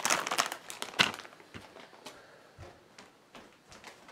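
Foil chip bag crinkling and rustling as it is handled, densest in about the first second, then a few faint rustles and knocks.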